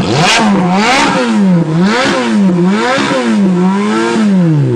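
Ferrari V8 engine revved hard while stationary, about five quick blips roughly a second apart, each rising and falling in pitch, settling back to idle near the end.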